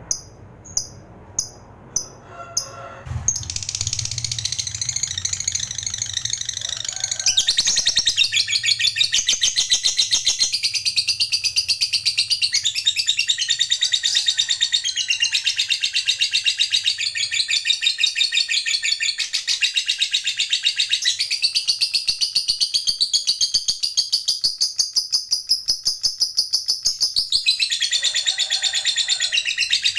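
Lovebird giving a few sharp chirps about twice a second, then breaking into a long, unbroken, rapid high-pitched chatter, the 'ngekek panjang' long trill prized in a singing lovebird.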